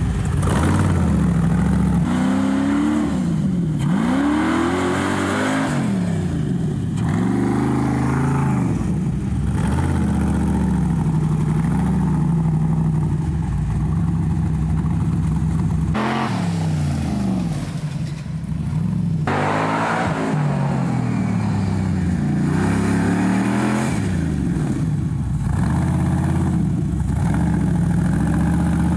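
Rock buggy's engine revving up and down repeatedly as it is driven, with stretches of steady engine speed between the revs.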